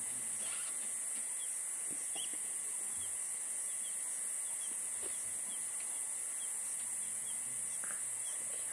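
Outdoor bush ambience: a constant high-pitched hiss with short chirps repeating several times a second and a few faint low sounds, with no clear elephant call.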